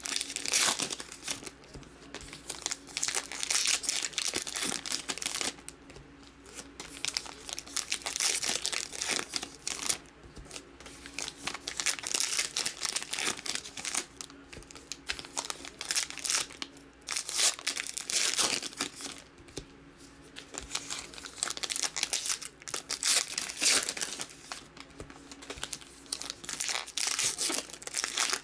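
Wrappers of 2018 Topps Heritage High Number baseball card packs being handled and torn open. They crinkle and tear in irregular bursts.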